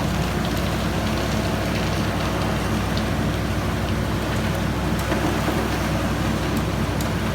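A vehicle engine running steadily as it drives, with a constant rushing noise of road and wind over it.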